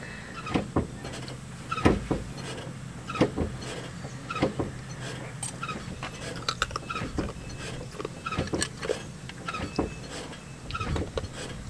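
Scattered clicks and light knocks over a steady low hum, with a few short squeaks, as the brake pedal is pumped while bleeding the brakes.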